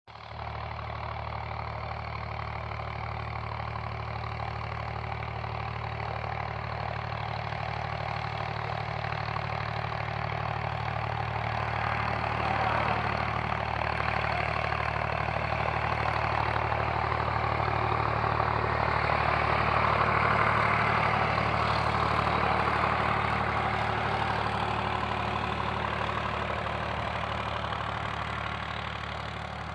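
An engine running steadily with a low hum, and a broad rushing noise that grows louder toward the middle and eases off near the end.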